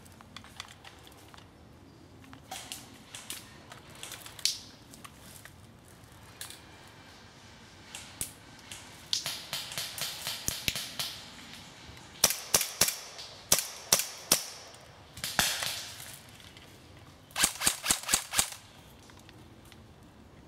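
Airsoft guns firing: sparse single shots at first, then a string of rapid bursts from about nine seconds in, the last and densest burst near the end.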